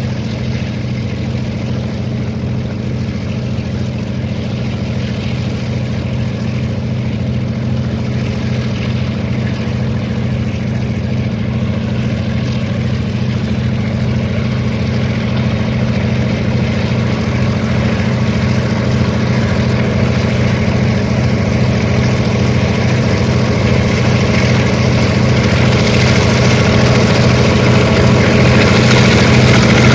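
EMD GR12 diesel-electric locomotives' two-stroke diesel engines working as a freight train approaches, a steady low engine note growing steadily louder as it nears.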